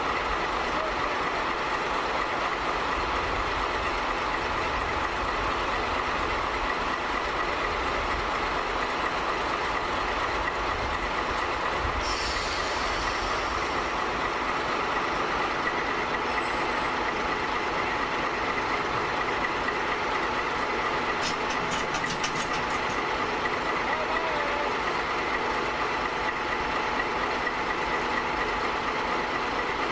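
Diesel locomotive's engine running steadily close by, with a short hiss of air about twelve seconds in and a quick run of faint clicks a little past twenty seconds.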